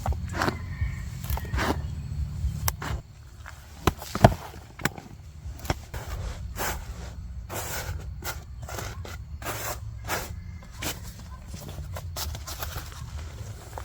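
Hands digging through soil in a potato grow container: irregular scrapes, rustles and knocks, with one sharp knock about four seconds in, over a steady low rumble.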